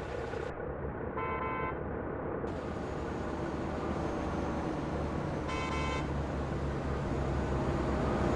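Road traffic with a steady engine and road rumble, and two short horn toots, one just over a second in and another about two-thirds of the way through.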